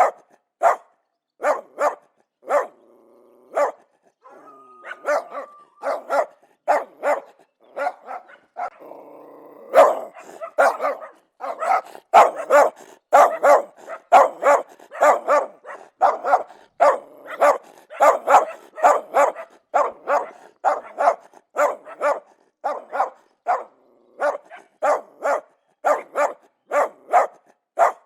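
Dogs barking aggressively over and over, about two barks a second, thicker and overlapping past the first third. Two short stretches of low growling come between barks early on.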